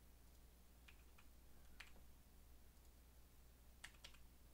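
Near silence with a faint low hum and a handful of faint, sharp computer clicks: two about a second in, one near two seconds, and a quick pair near four seconds.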